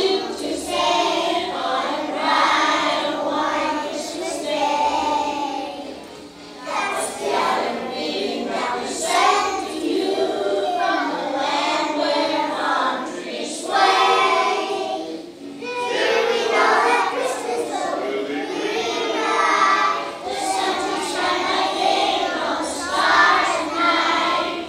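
A group of children singing together in phrases, with short breaks between lines.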